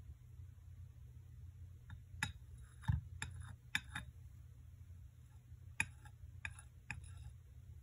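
Porcelain saucer clicking against the rim of a small Turkish coffee cup as it is lifted and tilted off the cup: about eight light clicks, the loudest with a dull knock about three seconds in.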